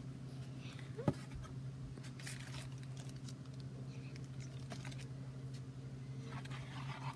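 Faint scratching and light clicks of small things being handled, over a steady low hum, with one brief rising squeak about a second in.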